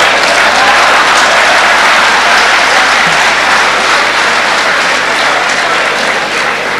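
Large audience applauding, loud and steady, easing off slightly near the end.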